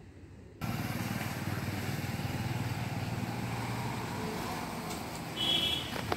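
Street traffic heard from a balcony: a motor vehicle's engine hum that starts suddenly about half a second in and eases off after about four seconds, over general outdoor noise. A brief high-pitched tone sounds about five and a half seconds in.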